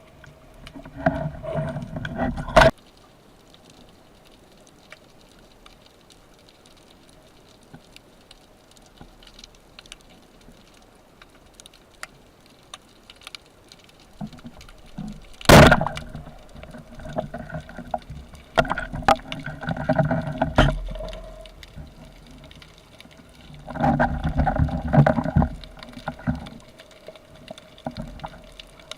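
Underwater sound during a spearfishing dive: bursts of gurgling water noise come and go, with scattered clicks and one loud sharp knock about halfway through.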